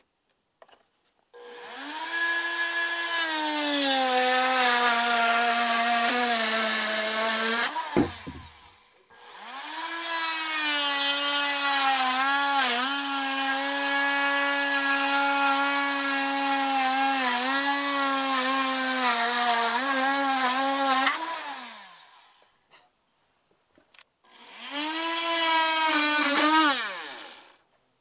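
Dremel Trio rotary tool cutting through a wooden board, running three times. The motor whine spins up about a second in and sags in pitch as the bit bites, with a knock as the first run ends. A second, longer run wavers in pitch as the cut is pushed along, and a short third run comes near the end.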